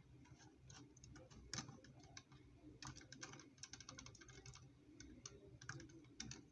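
Faint, irregular little plastic clicks and taps from the joints and pieces of a Mega Construx Master Chief building-block figure being handled and posed, with a quicker run of clicks about three seconds in.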